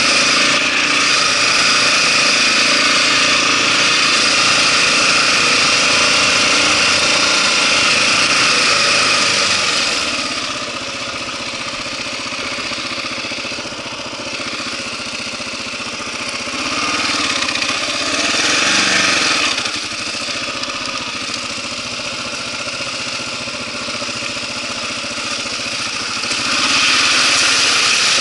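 Kawasaki KLR650's single-cylinder four-stroke engine running while riding a dirt track, with wind rush over it. It is louder for the first third, eases off, picks up briefly in the middle, and rises again near the end as the bike reaches a creek crossing.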